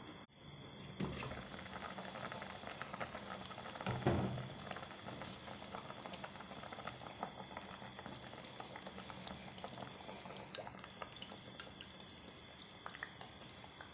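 Pork-bone broth boiling hard in an open pot, a steady bubbling and crackling. About four seconds in there is a louder bump.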